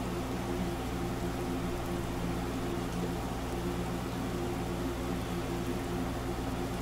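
Steady low hum with an even hiss over it: room noise from a running appliance such as a fan or air conditioner.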